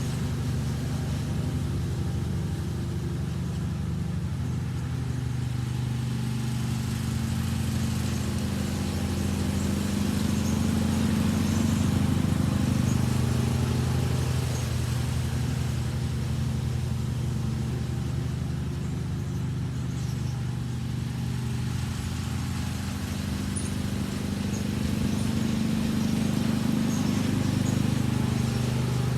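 John Deere riding lawn mower's engine running steadily while mowing, with a low hum that grows slightly louder twice, about twelve seconds in and again near the end.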